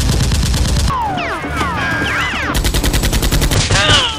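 Two bursts of rapid automatic gunfire sound effects, with falling whistling tones in the gap between them.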